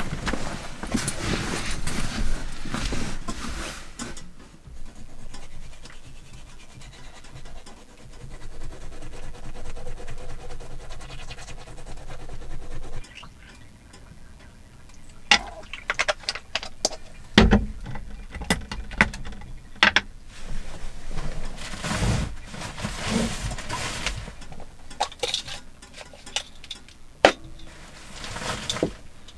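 Toothbrushing close by, a scrubbing sound over the first several seconds. It is followed by scattered clicks, knocks and clinks of small things being picked up and set down on a wooden table.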